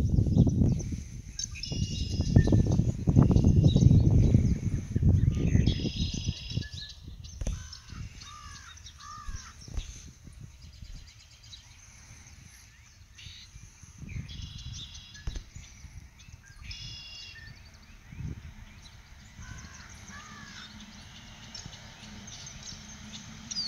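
Birds calling outdoors: short harsh calls repeated in clusters, with a few lower sliding calls. A low wind rumble on the microphone is loudest in the first six seconds, then dies down.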